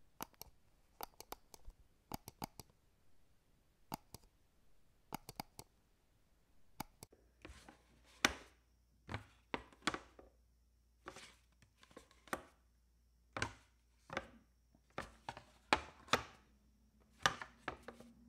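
A run of sharp, separate office clicks, first in quick little clusters. From about seven seconds in they become louder, fuller snaps and knocks about once a second, over a faint steady hum.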